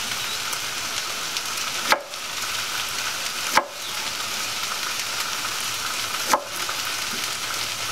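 Bowfin fillet sizzling steadily in grease on a Blackstone flattop griddle. A knife chopping onion on a white oak cutting board gives three sharp knocks, about two, three and a half and six seconds in.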